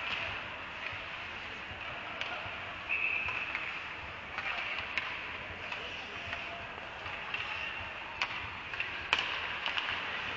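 Ice hockey play: skate blades scraping across the ice make a steady hiss, with scattered sharp clacks of sticks and puck.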